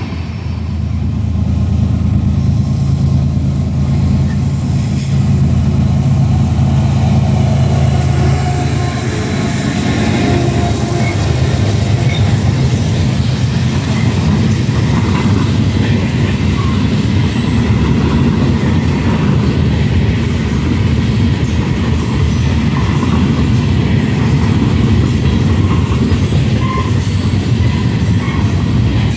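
Freight cars rolling past at close range, tank cars and then open gondolas: a steady heavy rumble of steel wheels on rail that eases into a more even rattle about nine seconds in, with a few brief faint wheel squeals.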